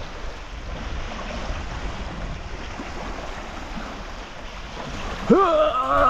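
Steady rushing noise of wind and lake water. About five seconds in, music starts over it with held, sliding tones.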